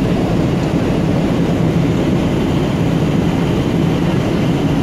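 Airliner cabin noise in flight: the steady low rumble and rush of the engines and airflow heard from inside the cabin.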